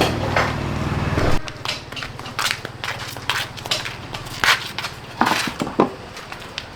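Background music that cuts off about a second and a half in, then irregular clicks, knocks and scrapes of hard objects being handled, typical of parts and tools being worked on.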